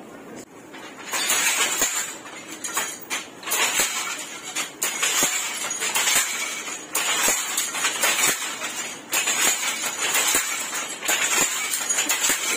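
Maina automatic handloom weaving: the loom's moving parts clatter, with sharp clacks repeating about once or twice a second in an uneven rhythm. The clatter starts about a second in.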